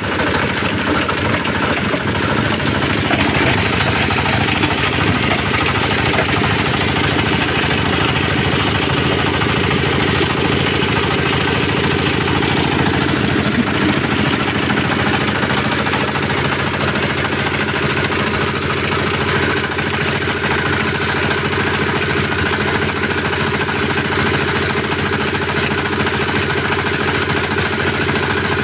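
Engine-driven organic-waste shredder running steadily under load, its small stationary engine and rotor grinding fruit waste into a wet pulp that pours from the chute. The sound stays even throughout, with no change in speed.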